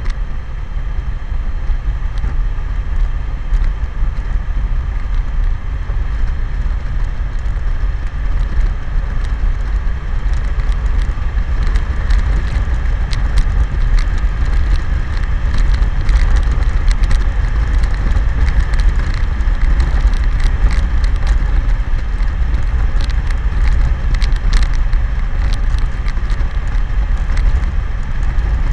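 BMW K1100LT motorcycle riding at highway speed: a steady low wind rumble on the microphone over the bike's inline-four engine and road noise. It gets a little louder around the middle.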